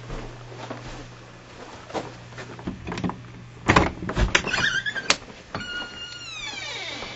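A wooden interior door is handled, with a few thumps and a click about four seconds in, then its hinge creaks in a falling squeal as it swings open.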